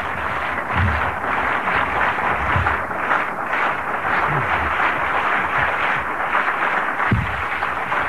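Audience applauding at the close of a lecture: a dense, steady clatter of many hands clapping, with a few low thumps.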